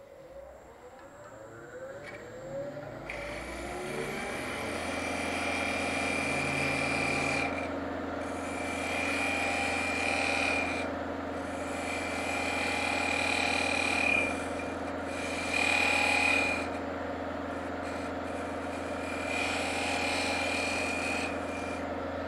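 A modified quarter-inch square scraper boring a recess into the face of a wooden knob spinning on a wood lathe: five cutting passes of a few seconds each, a scraping noise with a high whine. The lathe's steady motor hum runs underneath.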